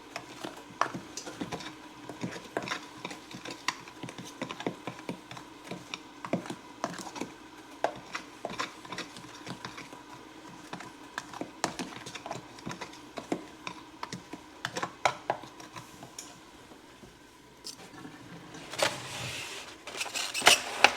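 Fork stirring dry cornbread mix in a bowl: quick, irregular clicks and taps of the fork against the bowl, several a second, with a brief louder rushing sound near the end.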